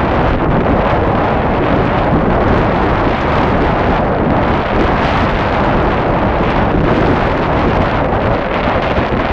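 Strong wind buffeting the camera microphone aboard a sailboat under way: a loud, steady rushing noise with no let-up.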